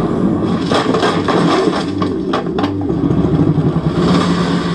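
Film trailer soundtrack during a fight scene: several sharp hits in quick succession over a low, steady rumbling drone.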